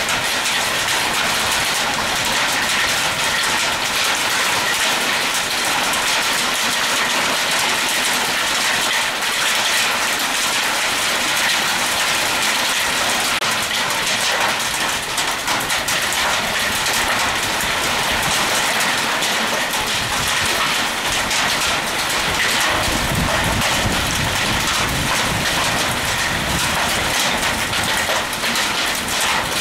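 Heavy rain falling steadily in a dense hiss. A deeper rumble joins near the end.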